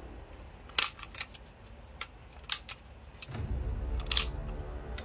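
Small sharp plastic-and-metal clicks as a screwdriver tip works a leaf spring into place beside the takedown lever in a toy pistol's plastic frame. There are about five or six separate clicks, two of them close together midway through.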